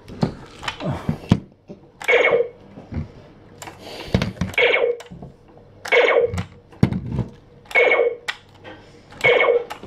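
Nerf Laser Ops Pro AlphaPoint laser blaster fired again and again: five identical short electronic shot effects from its little speaker, one to two and a half seconds apart, with sharp clicks in between.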